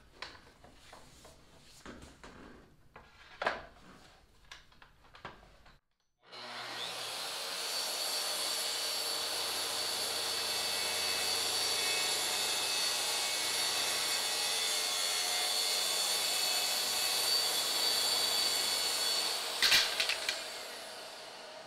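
Clicks and knocks as a Makita track saw is handled and set on its aluminium guide rail, then the saw runs steadily, cutting through plywood along the rail for about fourteen seconds with its dust-extraction hose attached. A few knocks come as the cut finishes near the end, and a quieter steady hiss carries on after the saw stops.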